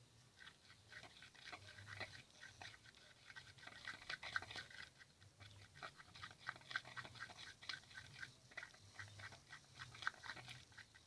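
Faint, quick, irregular sticky clicking and squelching of glue-based homemade slime being stirred and worked in a small pot.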